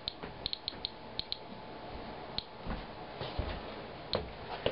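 Inspector Alert Geiger counter clicking at random, uneven intervals, several clicks bunched together in the first second and a half, then single clicks further apart. Each click is one detected count from a rain sample reading about 160 counts per minute, about four times the 34.8 cpm background.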